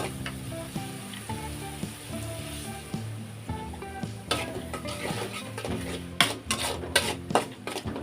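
Food sizzling as it fries in hot oil in a pan, with a spatula scraping and knocking against the pan several times in the second half.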